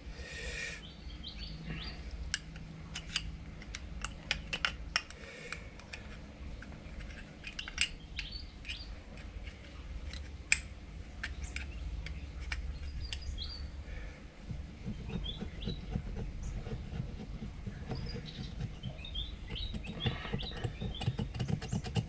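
A pointed metal pick scraping and ticking irregularly against the inside of a Honda CT110 carburettor float bowl, breaking through a crust of varnish left by old fuel. Birds chirp in the background.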